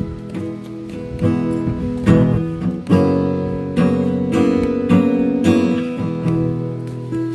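Acoustic guitar strummed in a steady, unhurried rhythm, the chords ringing on between strokes.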